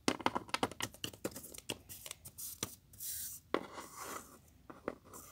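Small plastic toy figures and miniature props being handled and set down close to the microphone: a quick run of clicks and taps for the first two seconds, a short rustle about three seconds in, then scattered taps.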